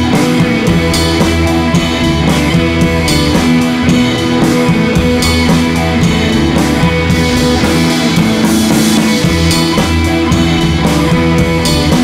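Background rock music with guitar and drums, playing steadily.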